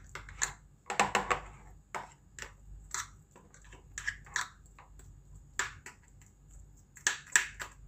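Metal fork scraping and tapping against the plastic of a hand-cranked chopper while scooping out minced chicken: irregular sharp clicks, with a longer scrape about a second in and a quick run of clicks near the end.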